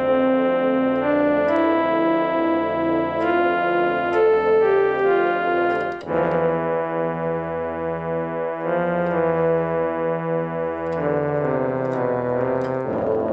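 Instrumental electronic music: held keyboard chords over a repeating pattern of short low notes, with the harmony changing sharply about six seconds in.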